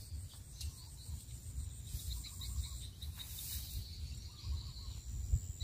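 Insects buzzing with a steady high tone, joined about two seconds in by a quick run of short chirps, over a low, uneven rumble.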